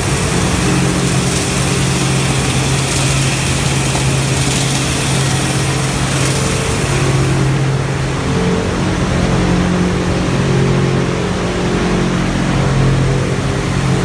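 Plastic recycling line running steadily: a constant electric-motor hum under the hiss of water sprays from the flake-washing tank. The spray hiss weakens about halfway through while the machine hum carries on.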